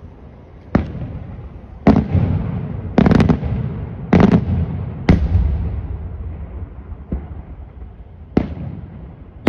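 Daytime aerial firework shells bursting overhead: about eight sharp bangs, roughly one a second with a close pair near the middle, each trailing off in a low rumble.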